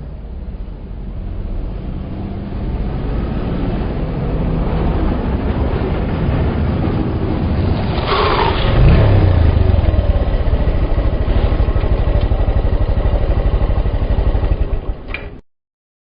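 Motorcycle engine running and growing louder, with a sudden surge that falls in pitch about eight seconds in, then running loud and steady until it cuts off abruptly near the end.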